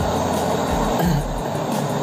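Air rushing hard out of a cut refrigerant pipe on an LG freezer's compressor circuit: a steady rush with a low rumble under it.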